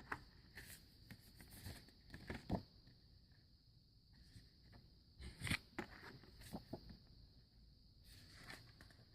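Near silence with faint handling noise: a few soft clicks, knocks and rustles scattered through, the clearest about two and a half and five and a half seconds in.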